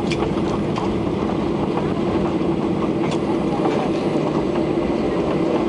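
Steady airliner cabin noise while the plane rolls along the ground after landing: a constant engine hum over a low rumble, with a few light knocks and rattles.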